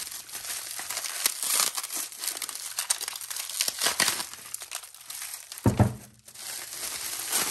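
Bubble wrap crinkling and crumpling as it is pulled off a part by hand, with one dull thump a little over halfway through.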